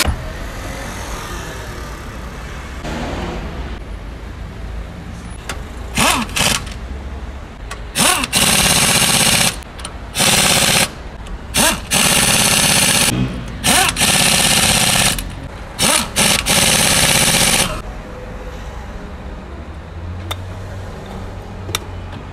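Pneumatic impact wrench running on the wheel bolts of a Mercedes-Benz W124. It goes in a string of about seven bursts of hammering, each one to two seconds long, starting about six seconds in and stopping a few seconds before the end.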